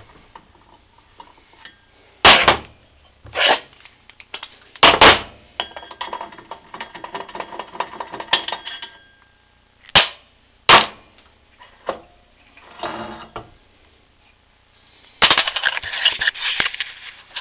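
Sharp metal knocks and clanks, about six of them, with stretches of rattling and clatter between, as tools work on the nut holding the clutch of a Honda Hobbit PA50II moped.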